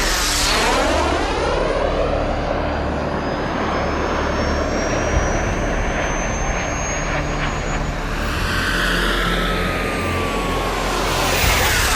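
Small turbine engine of a 1/5-scale BVM L-39 model jet, flying past with a steady jet whine and hiss. It swells as the jet passes close just after the start and again near the end, and a whistling tone falls in pitch as it goes by.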